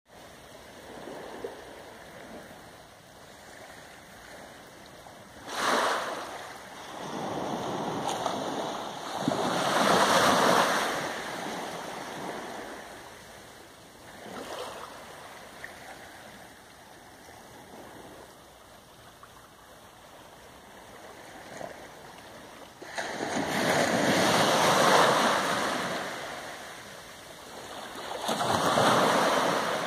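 Small waves from a glassy calm sea lapping and washing up onto the shore. They come in slow swells a few seconds long, the loudest about ten seconds in and again about twenty-four seconds in.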